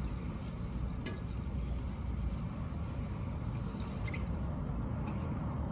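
A raccoon eating meat off a concrete floor, with a few faint clicks of chewing about a second in and about four seconds in, over a steady low rumble.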